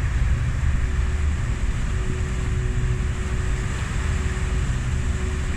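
Car ferry's engines running with a steady low rumble while its propellers churn the water close by, and a faint hum comes and goes from about two seconds in.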